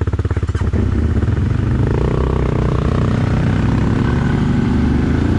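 CFMOTO 1000 ATV engine running loud under throttle. It goes from distinct low pulses into a steady drone as the revs rise.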